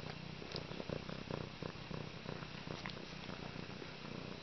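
Brown tabby kitten purring steadily, close to the microphone.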